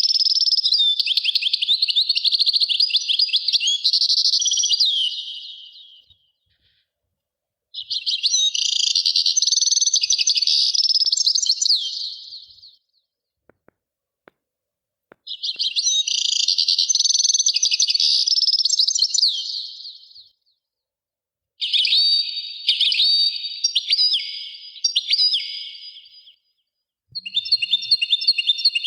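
Birds chirping and singing in high, busy bouts of about five seconds each, with short pauses between them.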